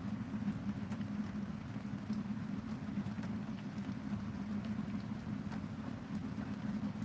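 Steady rain pattering, with many separate drop ticks over it and a steady low hum underneath.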